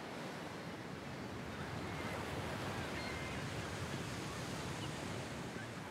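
Ocean surf breaking and washing on a beach, a steady rushing with no distinct wave crashes standing out.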